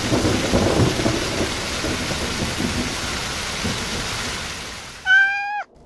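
Heavy rain pouring down, with a low rumble of thunder in the first second or so. About five seconds in, a short high-pitched cry that drops in pitch as it ends: the lost origami baby dinosaur crying in the rain.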